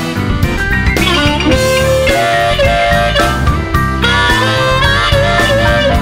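Blues band instrumental break: a harmonica plays held notes that bend and waver in pitch over guitar and a steady drum beat.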